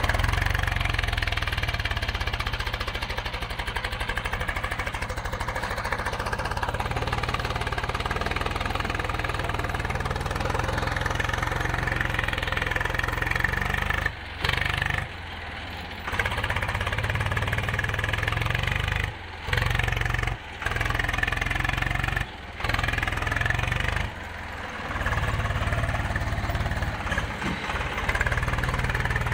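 Swaraj tractor's diesel engine running steadily as it pulls a trolley over a sandy track, with the sound dropping out briefly several times in the second half.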